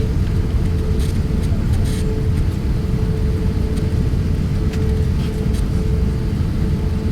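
Airbus A350-1000 cabin noise while the airliner taxis: a steady low rumble with a steady hum above it.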